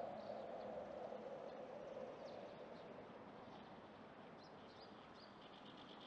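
Faint house martin calls: short high chirps scattered through, then a quick run of twittering notes near the end. Under them runs a low steady rumble that fades away over the first two or three seconds.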